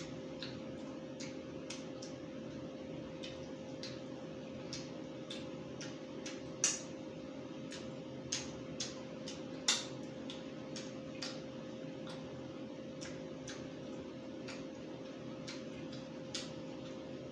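Eating sounds of roast chicken eaten by hand: irregular clicking sounds of chewing and handling the chicken, a few louder ones around the middle, over a steady hum.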